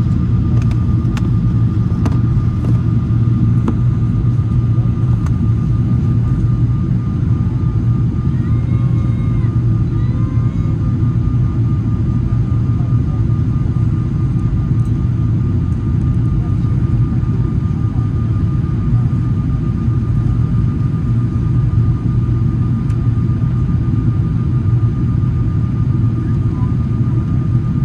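Steady cabin noise inside a Boeing 777-300ER on descent: a deep, even rumble of airflow and its GE90 engines, with a thin steady tone above it.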